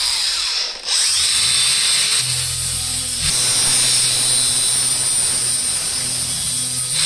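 Cordless angle grinder with a flap disc grinding and deburring the cut edge of a stainless steel strip: a steady high whine that dips briefly about a second in.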